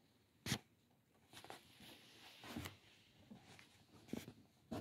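Quiet room with a few soft knocks and rustles, the sharpest about half a second in.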